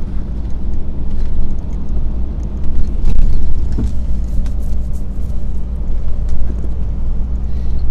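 Lorry's diesel engine running at a steady cruise with road noise, heard from inside the cab as a continuous low drone, with a few faint rattles.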